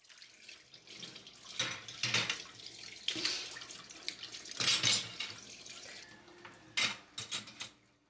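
Wet ceramic plates and bowls set down one by one into a stainless steel wire dish rack, knocking and clinking against the wires, over running and dripping water in the sink. The knocks are loudest about two and five seconds in, with a quick run of them near the end.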